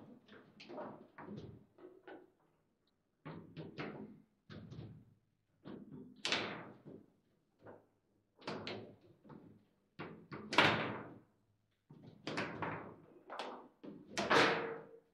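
Foosball table in play: an irregular run of sharp knocks and bangs from the ball being struck and the rods and figures hitting the table. The hardest hits come about ten and fourteen seconds in.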